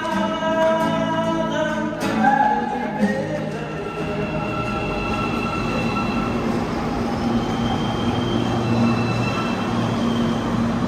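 Music with a singing voice for the first two seconds or so, then an Almaty Metro train at the platform: a steady rumble with long, level, high whining tones over it.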